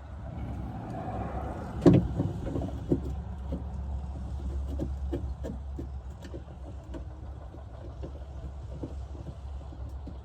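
Small metal screws being turned in by hand into a tailgate latch, giving light irregular clicks about twice a second over a steady low hum. One sharp knock comes about two seconds in.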